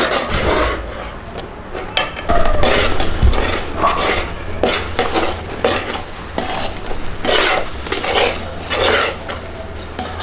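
Metal spatula scraping and stirring around a large aluminium pot, working corn flour into hot sugar syrup in repeated rasping strokes against the pot's wall.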